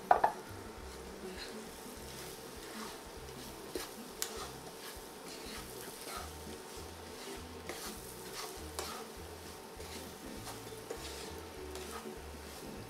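Wooden spoon stirring and scraping a farofa of cassava flour, pine nuts and bacon around a non-stick frying pan, with scattered light clicks of the spoon on the pan over a faint sizzle.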